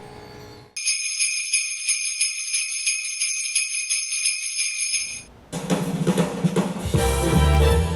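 Sleigh bells shaken in a steady rhythm for about four seconds. After a short pause, music comes in, with a strong bass line joining near the end.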